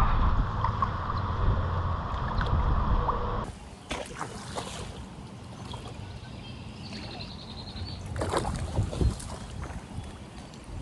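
Wind buffeting the microphone, then after an abrupt cut about three and a half seconds in, quieter water sounds with a few short splashes and sloshes.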